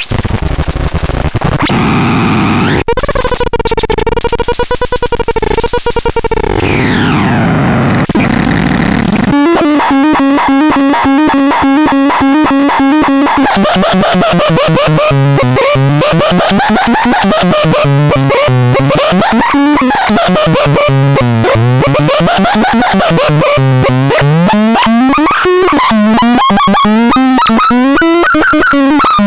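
Electronic sound device running through its programmed effects: loud, synthetic warbling tones. After a falling sweep, it settles into a rapid pulsing tone whose pitch keeps gliding up and down, like a siren.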